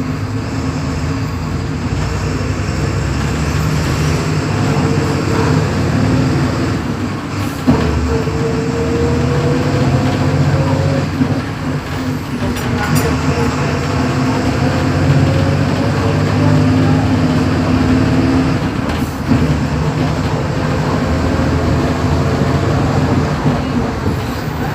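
Volksbus 17.230 EOD bus's diesel engine running under load, its pitch rising slowly several times and dropping back in between, as when pulling through the gears. There is a single sharp click about a third of the way in.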